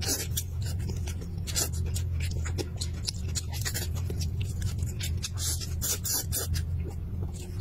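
Close-miked eating sounds: wet chewing and lip smacking on roast chicken, with meat being torn apart by hand, as a dense run of short clicks and crackles over a steady low hum.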